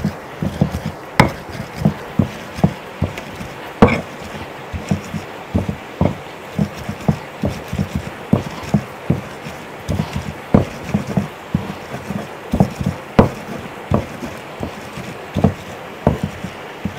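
A hand-held grinding stone (lohoro) pounds and crushes garlic cloves on a flat slate grinding stone (silauto). It makes a steady run of dull knocks, about two a second, with a few sharper stone-on-stone clacks among them.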